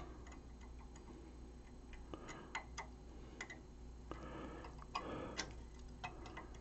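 Faint, irregular small metallic clicks and brief scraping as a long Bristol spline wrench is probed against the set screws in a Collins 51J-1 receiver's dial gear train, looking for a screw it fits.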